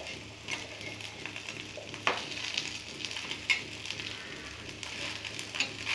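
Bamboo-shoot and rice-batter fritters sizzling in a little oil on a nonstick tawa, with a spatula scraping and tapping against the pan a few times as they are turned over.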